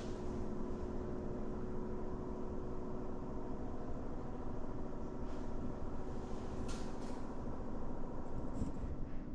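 Steady machine hum with several held tones over a low rumble, and a few faint ticks.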